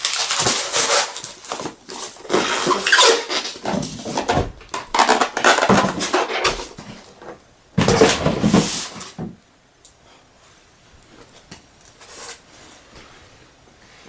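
Packaging being handled and rustled while a diecast model is unpacked: irregular crinkling and rustling for about nine seconds, then only faint handling clicks.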